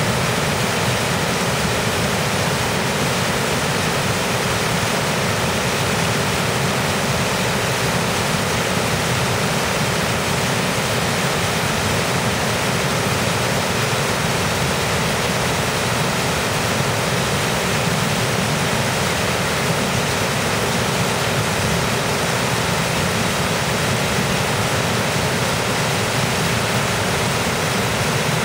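Mountain stream rushing through white-water cascades over boulders: a steady, even rush of water with no breaks.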